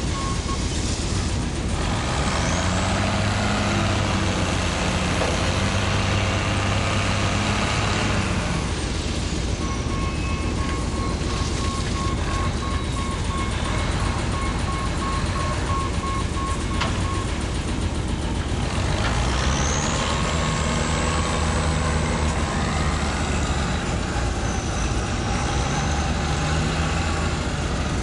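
Diesel-electric switching locomotive's engine running and throttling up twice as it works, about two seconds in and again about two-thirds through. A rapidly repeated single-pitched ding sounds through the middle stretch.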